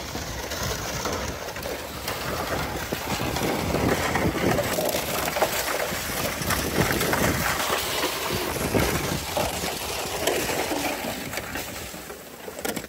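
Footsteps crunching through snow, with a plastic sled scraping over the snow and ice as it is towed on a rope. The crunching and scraping come as many small irregular crackles, at their most dense through the middle.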